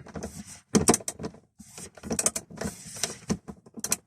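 Plastic dashboard trim and parts being handled and fitted in a car: an irregular string of clicks, taps and rattles.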